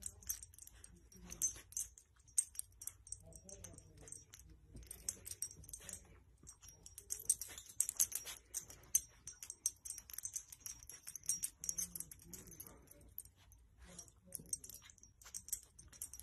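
Quiet, irregular light clicking and jingling, a rapid crackle of small clicks with a few louder ones.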